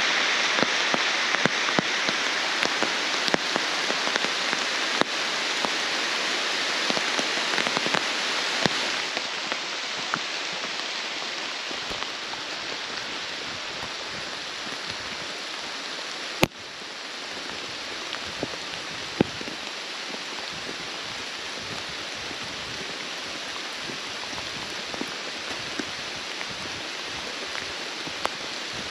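Steady rain falling on forest foliage: an even hiss dotted with the small ticks of single drops, easing a little about a third of the way in. One sharp knock sounds about halfway through.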